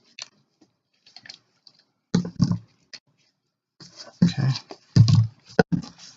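A 10-ton hand-pumped hydraulic crimper being worked: irregular short knocks and creaks from the pump handle strokes, starting about two seconds in and coming more closely in the second half, with one sharp click near the end.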